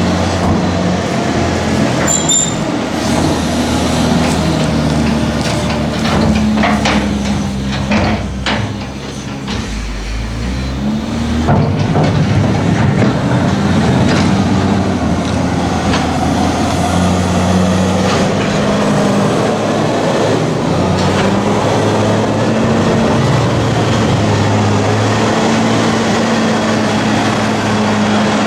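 Heavy diesel farm machinery running steadily, its engine note shifting now and then with load, with a run of clanks and knocks partway through.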